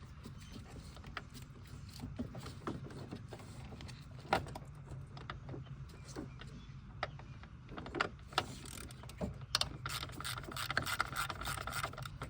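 Hand ratchet with a 7mm socket clicking as the bolts of the ignition coil pack are turned out: scattered clicks and knocks, then a faster run of ratcheting for the last couple of seconds.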